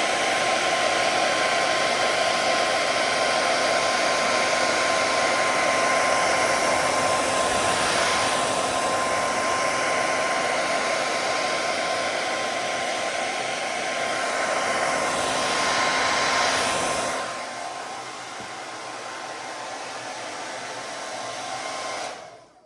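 Hair dryer blowing steadily, a loud even rush of air with a faint whine, used to warm the sides of an all-in-one PC's screen so the edges become supple enough to lift off. It gets quieter about three-quarters of the way through and is switched off just before the end.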